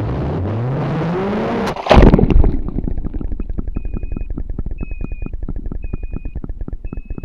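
3D-printed racing quadcopter dropping out of the sky after its radio link is lost and the failsafe cuts it: a rising whine, then a loud crash into brush about two seconds in. Afterwards a rapid, even ticking with a short high beep about once a second.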